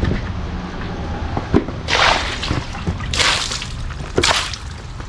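Water sloshing and splashing in several short bursts about a second apart, over a steady low rumble.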